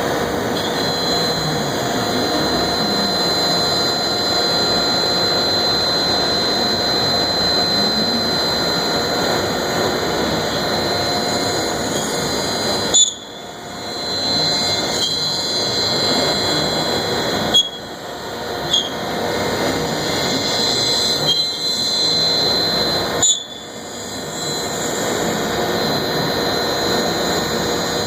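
AXYZ Series 4008 CNC router running under power, a steady machine noise with a thin high whine. Four times, a short sharp pop comes and the noise drops, then builds back up over a second or two.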